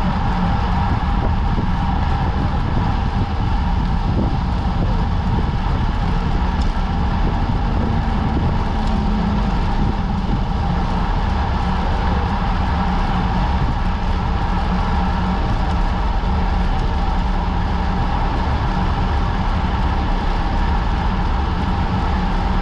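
Wind rushing over a bike-mounted camera's microphone, with tyre and road noise from a road bicycle riding on asphalt at about 48 km/h. It runs steady and unbroken, with a low rumble and a constant hum.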